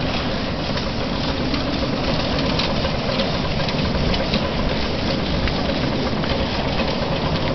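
Miniature ridable steam locomotive running along the track: a steady hiss of steam with running noise from the engine and wheels, and no clear beat of exhaust chuffs.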